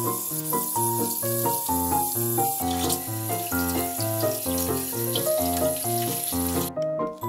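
Water from a pull-out kitchen faucet running into a stainless steel sink, rinsing away baking soda, over background music with a steady run of notes. The water sound cuts off suddenly near the end.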